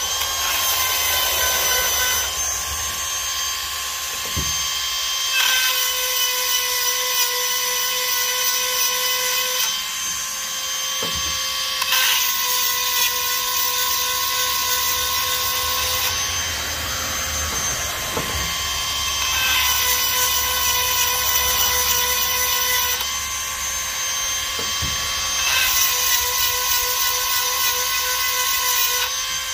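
Cordless rotary tool with a grinding stone whining steadily as it sharpens chainsaw cutter teeth, the grinding hiss swelling in about five stretches of a few seconds each as it is worked tooth by tooth. It is touching up teeth chipped by hitting nails.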